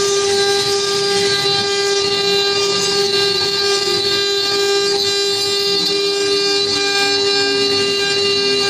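CNC router spindle running with a steady high whine while milling wood, over a rough cutting noise. A second, lower tone falls slowly in pitch over the last few seconds.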